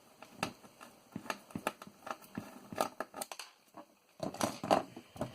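Screwdriver working screws out of a floppy disk drive, a string of small irregular metal clicks and scrapes, louder and busier near the end.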